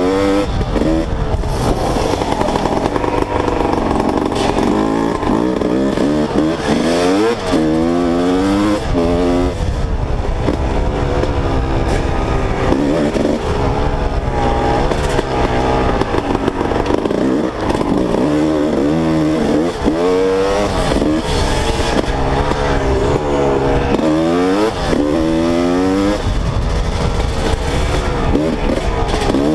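Two-stroke dirt bike engine revving up and down as the throttle is rolled on and off while riding a trail, its pitch rising and falling every second or two.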